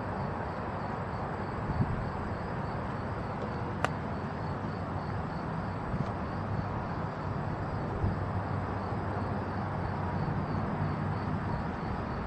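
Steady, distant rumble of a long freight train of boxcars, tank cars and covered hoppers rolling past far off, with a single sharp click about four seconds in.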